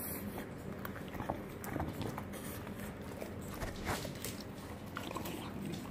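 English bulldog eating a freeze-dried raw chicken treat on a wooden floor: irregular small wet clicks, licks and crunches, with the occasional tap of claws on the floor.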